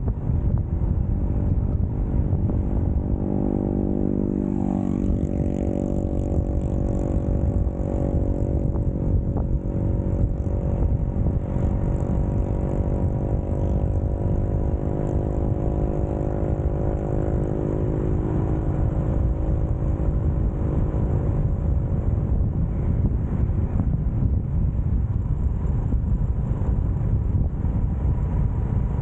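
Motorcycle riding along, its engine running under a steady wind rumble on the microphone. The engine's pitch drops sharply about four to five seconds in, then holds steady and fades back into the rumble about two-thirds of the way through.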